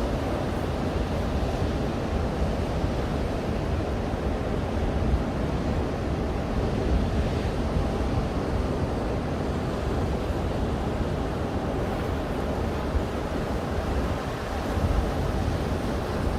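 Atlantic surf washing continuously onto a beach, with a low rumble of wind on the microphone.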